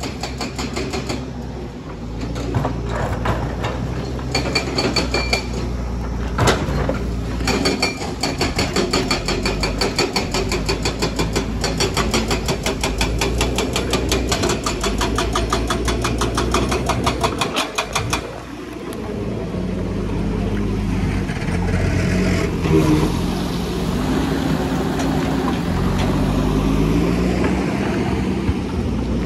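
Kobelco hydraulic excavator's diesel engine running under load while digging, with a fast, even clatter over it for the first half or more. After a brief dip about two-thirds in, the engine note wavers up and down as the machine works.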